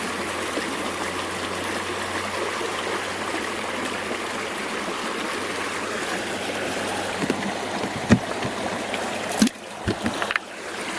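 Creek water running steadily over stones. A few sharp knocks come in the last few seconds, and the water sound dips briefly near the end.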